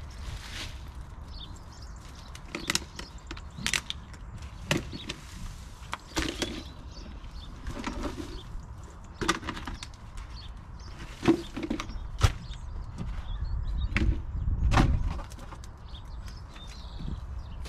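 Scattered knocks, clatters and rustles of rubbish and plant pots being picked up and dropped into a plastic sack, with two sharper knocks about two-thirds of the way through, over a steady low rumble.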